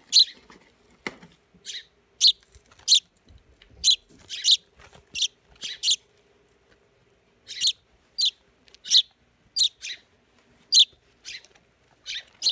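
A fledgling songbird giving short, sharp chirps, about twenty in all, in irregular runs of one or two a second.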